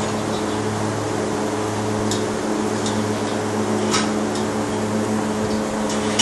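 Steady mechanical hum of barn machinery with a constant low drone, and a few faint light ticks.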